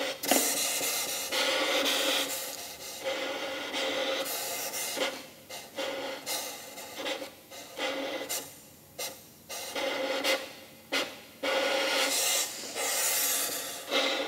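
Violin bowed to make unpitched noise rather than notes, an extended technique. Long bow strokes at first, a run of short, separate strokes through the middle, then long strokes again near the end.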